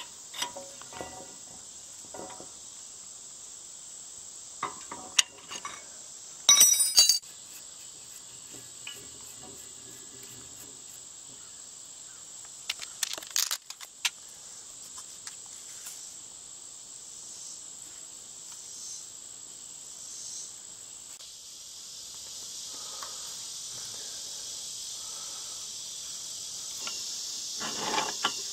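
Wrenches clinking and scraping on the sucker rod coupling and the well pipe fittings. There is a loud metal clatter about a quarter of the way through and a cluster of clinks around halfway, all over a steady high chorus of insects.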